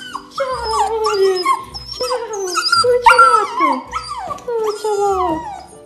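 Siberian husky puppy whining and howling in a run of falling cries, about one a second: the excited vocal greeting of a puppy whose owner has come back.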